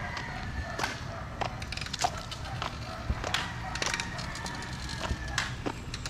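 Footsteps at a walking pace, sharp taps a little over half a second apart, over a low steady outdoor rumble, with a faint long high call in the background.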